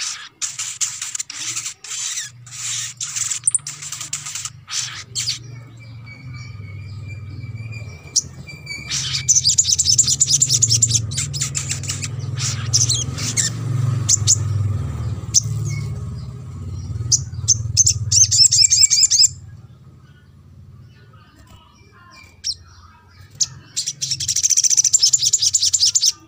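Sunbird calls: bursts of sharp, high chirps and fast trills, coming in several spells with pauses between them. A low hum runs underneath through much of it and fades about two-thirds of the way in.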